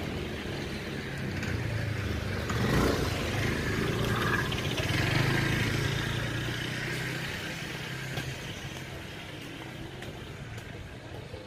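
A motor vehicle's engine hum that swells about three seconds in and fades away after about eight seconds, as of a vehicle passing by.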